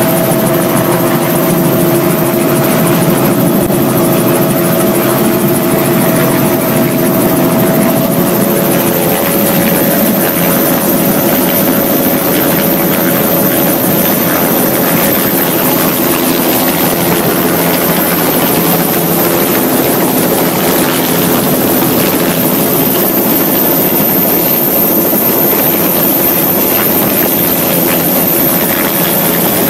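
Turbine helicopter running steadily, heard from inside the cabin: a loud even roar with a steady high whine over it.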